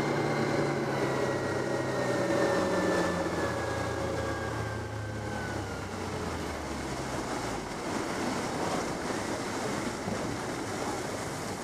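Boat engine running as the boat eases off, its pitch falling slowly until it fades out about seven or eight seconds in. The rush of sea water and waves around the hull runs throughout, with wind on the microphone.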